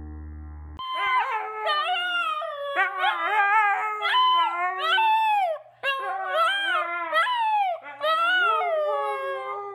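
A husky howling and yowling in long, wavering calls whose pitch slides up and down, starting about a second in, with two brief breaks.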